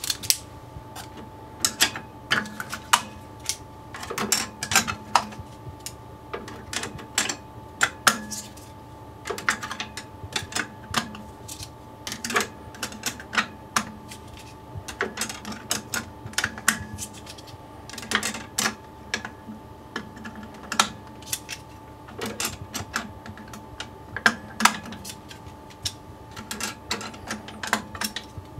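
Plastic memory flaps being fitted by hand into a Cremer CF1220 tablet counter's memory flap unit: irregular sharp clicks and taps, at times several a second, over a faint steady hum.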